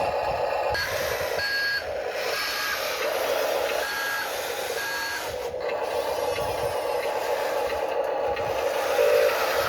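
Radio-controlled construction model's electric motors running with a steady whine, with about five short electronic beeps in the first half, like a reversing alarm.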